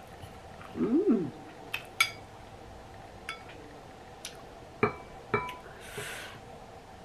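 Metal spoon clinking against a ceramic bowl several times as mushrooms are scooped from broth. The clinks ring briefly. About a second in there is a short 'mm' from a voice that rises and falls in pitch.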